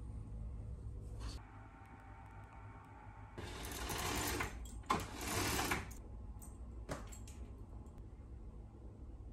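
Curtain pulled along its rail twice, the runners rattling for about a second each time, with a sharp click in between.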